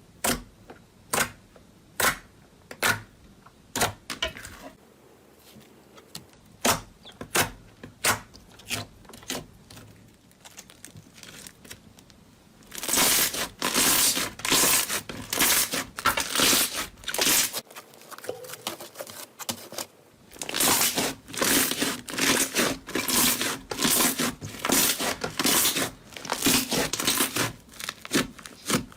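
Slime being poked and squished by hand, giving separate sharp clicky pops about one and a half a second. Then come two long runs of dense, louder crackling and popping, with a short quieter break between them.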